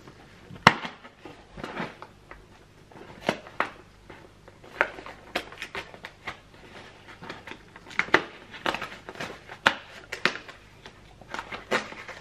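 A cardboard advent calendar door being peeled open and its packaging handled: an irregular string of short clicks and scratches, the sharpest about a second in.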